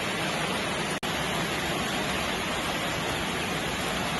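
Steady rain ambience, an even hiss of falling rain, with a brief dropout about a second in.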